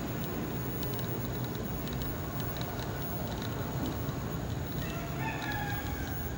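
One drawn-out animal call with a slightly falling pitch, lasting about a second and a half near the end, over a steady low rumble.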